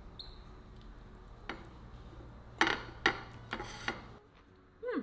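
A metal serving spatula clinking and scraping against a glass baking dish and a plate as a portion of shepherd pie is served, with several sharp clinks in the second half.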